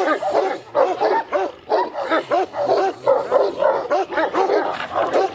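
Large shepherd dogs barking hard at each other through a wire kennel fence, a fast unbroken series of barks at about three a second.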